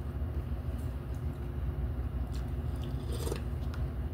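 Close-up eating sounds of people chewing instant noodles: small wet mouth clicks and a short, louder noisy burst about three seconds in, over a steady low hum.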